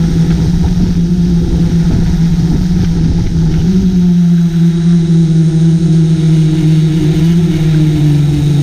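Multirotor drone's motors and propellers humming steadily as heard from its onboard camera, the pitch stepping up slightly about three and a half seconds in and dropping right at the end, with low wind rumble on the microphone.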